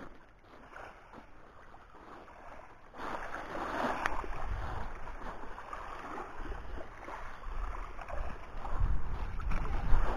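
Small waves washing over a pebble shore, with wind rumbling on the microphone. Both grow louder about three seconds in, and the rumble is heaviest near the end.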